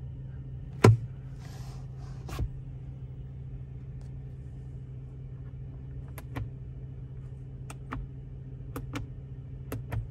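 Sharp plastic click of a sun visor's vanity mirror cover snapping open about a second in, then a second click. From about six seconds on come several pairs of light clicks as the overhead map light push-buttons are pressed and released, over a steady low cabin hum.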